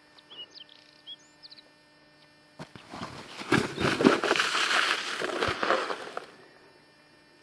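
Plastic saucer sled sliding and scraping down a snowy slope: a rough rushing hiss that starts suddenly about two and a half seconds in and fades out about three and a half seconds later.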